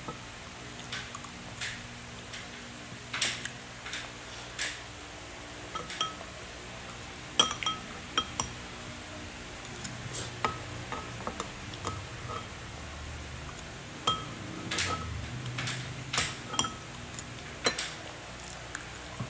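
A toddler's spoon knocking and scraping in a bowl as she feeds herself: irregular short taps every second or so, a few of them with a brief clinking ring.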